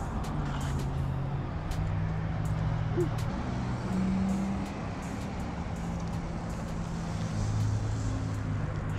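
Steady rumble of road traffic on the highway bridge overhead, with the low hum of engines and tyres shifting in pitch as vehicles pass. A few faint clicks sound over it.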